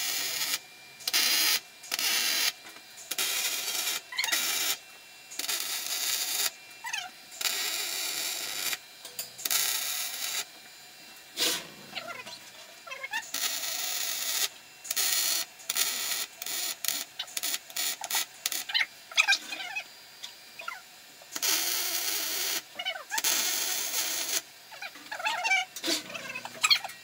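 MIG welding arc from a Stel Iron MIG 221p crackling and hissing in a series of tack welds and short beads, each burst starting and stopping abruptly with short pauses between, the longest lasting about a second and a half.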